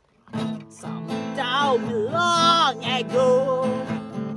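A man singing while strumming an acoustic guitar. The chord rings out just after the start, and the voice comes in about a second in with long, wavering held notes.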